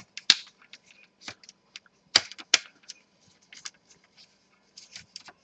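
Plastic clips of a Dell Inspiron 15 3000 laptop's palmrest cover snapping loose as a pry tool is worked along the seam between the two halves of the casing. The clicks are sharp and irregular; the loudest come just after the start and about two seconds in.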